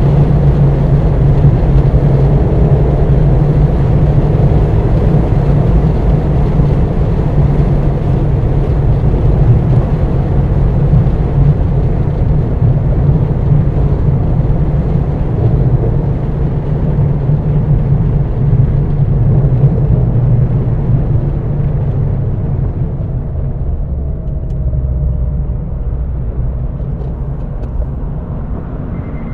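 2022 Mazda MX-5 Miata's 2.0-litre four-cylinder engine running under way, mixed with tyre and wind noise, heard from inside the cabin. A steady drone that grows quieter over the last several seconds.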